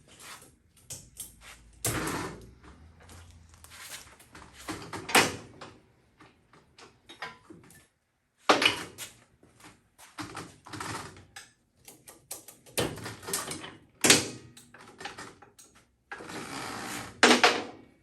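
Hands working on a minibike: an irregular run of clicks, clunks, rattles and scrapes of metal and plastic parts and tools, with several louder knocks spread through it, as the bodywork goes back on.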